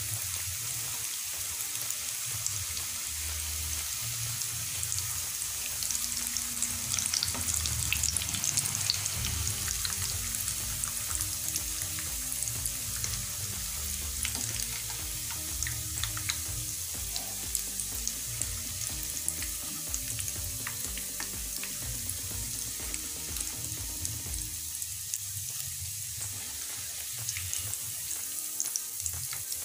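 Potato perkedel deep-frying in hot oil in a pan, a steady sizzle, with light scrapes and clicks of a slotted spatula as the cooked patties are lifted out of the oil.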